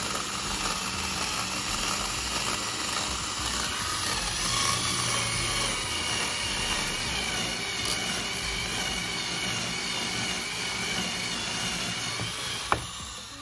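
Power drill with a step drill bit running steadily as it cuts a quarter-inch hole through an acrylic sheet, the motor giving a faint high whine over the noise of the bit shaving plastic. A sharp click near the end, then the drill winds down.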